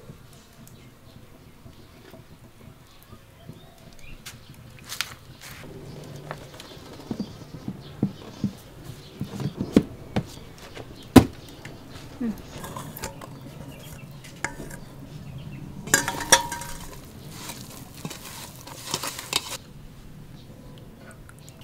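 Kitchen clatter of cookware and utensils: scattered sharp knocks and clinks, the loudest about eleven seconds in, then a denser clatter for about three seconds from about sixteen seconds.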